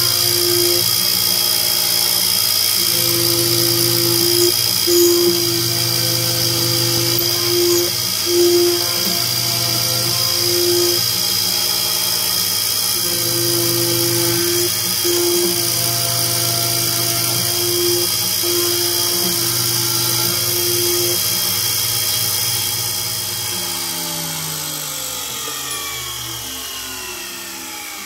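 Sherline 2010 CNC milling machine spindle running at about 10,000 rpm with a steady high whine as a small carbide tool machines holes in 7075 aluminium, a lower hum cutting in and out every second or two. Near the end the spindle winds down, its whine falling steadily in pitch.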